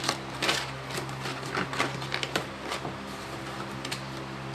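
Irregular light clicks and taps from plastic shoe-box panels being handled and fitted together, over a steady low hum.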